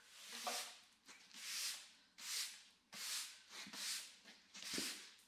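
Push broom sweeping a concrete floor: six scratchy bristle strokes, each swelling and fading, about one every three-quarters of a second.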